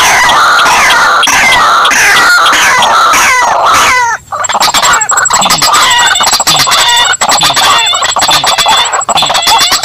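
Bird-lure recording of white-breasted waterhen (ruak-ruak) and sintar ladang calls played back loud. A dense run of repeated falling calls breaks off briefly about four seconds in, then gives way to a faster, evenly repeated calling with a thin steady high whine.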